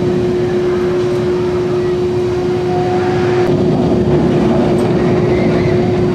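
Bolliger & Mabillard steel roller coaster train running along its track with a steady rumble and a constant hum.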